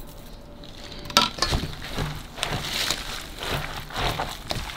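Seafood and chive pancake batter being stirred by hand in a bowl. From about a second in, the utensil clicks and scrapes irregularly against the bowl.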